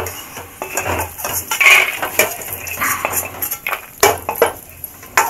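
Metal spatula scraping and clinking irregularly against a steel kadhai as ghee-roasted nuts and raisins are scooped out onto a steel plate.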